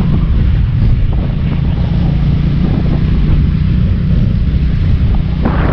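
Motorcycle engine running steadily while riding at speed, with heavy wind noise on the microphone.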